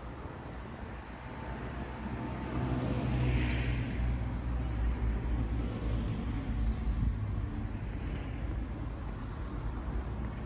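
A vehicle engine running with a steady low rumble that gets louder about two seconds in. A short hiss comes about three and a half seconds in.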